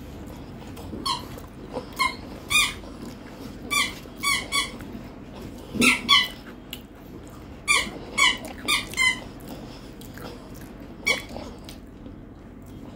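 Short, high squeaky calls from an animal, coming in clusters of two or three every second or two, about a dozen in all.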